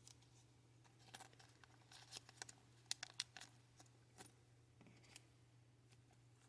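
Faint, scattered clicks and crinkles of small items and their packaging being handled, thickest between about one and three and a half seconds in.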